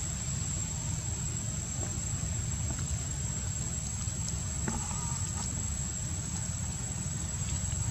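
Steady outdoor background: a constant low rumble under a thin, high, unbroken insect drone, with a few faint ticks and a brief faint squeak about five seconds in.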